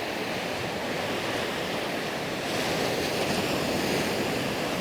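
Sea surf washing onto a sandy beach as a steady hiss, swelling about halfway through as a wave breaks and runs up the sand.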